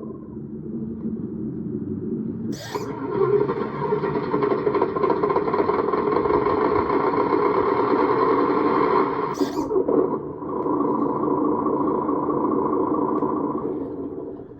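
Simulated diesel engine sound from the RC dump truck's electronic sound module, played through its small speaker. A click about two and a half seconds in brings a louder, fuller engine sound, and another click near ten seconds changes it to a steadier one, which cuts off just before the end. The clicks mark steps through the module's engine-sound settings.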